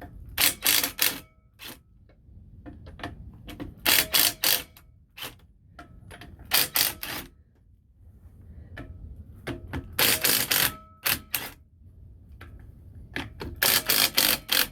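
Ryobi cordless impact wrench hammering at an RV wheel's lug nuts in about five bursts, each about a second of rapid blows with pauses between. It is working to break loose rusted lug nuts that have never been off.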